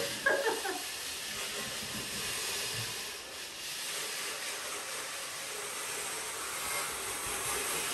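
A steady hiss that goes on without a break, with a short pitched sound just after the start.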